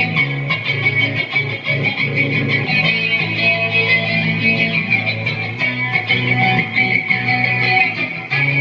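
Guitar-led music with bass playing steadily through a PA sound system during a sound check.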